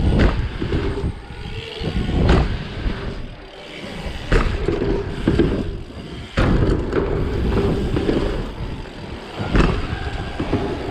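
Bicycle tyres rolling and rumbling over wooden ramps, with a sharp knock every two seconds or so as the wheels hit ramp lips and land.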